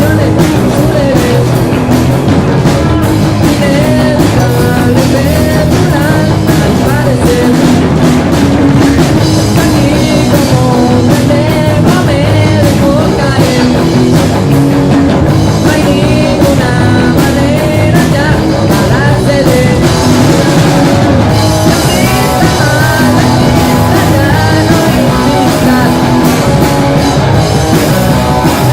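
Live heavy rock band playing loud and steady: electric guitars, bass guitar and drum kit.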